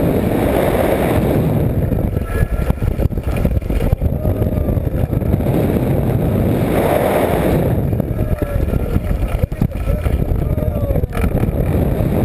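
Heavy wind buffeting the microphone, from the rush of air as the ride swings and drops, with faint distant voices or shouts beneath it.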